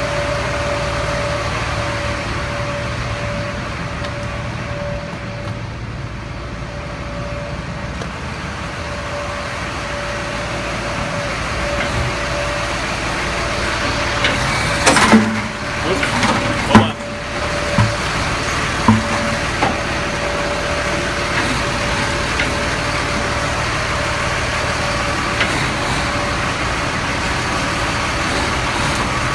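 Fuel truck engine idling steadily with a thin steady whine over it, and a few loud clanks and knocks about halfway through.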